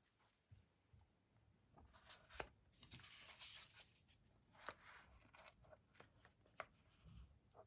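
Mostly near silence with faint, scattered taps and scrapes of a spatula lifting rolled ice cream off a steel cold plate and setting the rolls into a paper cup, with a brief soft rustle about three seconds in.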